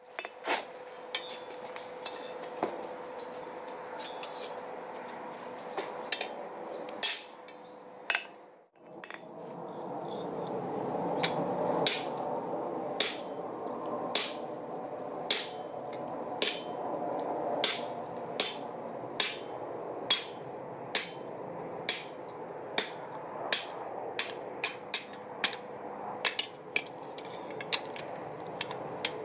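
Hand hammer striking hot steel on an anvil over a steady background rush. The blows are sharp and ringing, irregular at first, then after a short break they fall in a regular rhythm of about one blow every 0.8 seconds.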